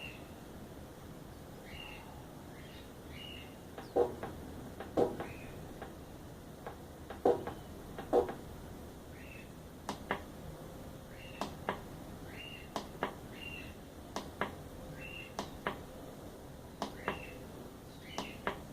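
Car Spotter NT dent-puller spotter welder clicking as its control is tested: four sharp, loud clicks in two pairs about a second apart, then a run of lighter clicks roughly once a second.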